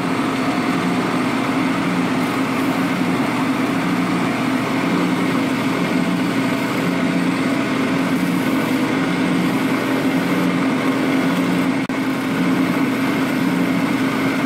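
Drill press running steadily with a hum that pulses slightly and regularly, spinning a Corian ring on a rubber expanding sanding mandrel while sandpaper is held against the ring to sand its sides.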